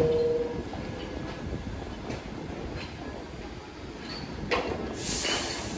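New York City subway train running on the tracks, with wheels clacking over the rail. A brief held tone right at the start, and a loud burst of hiss near the end.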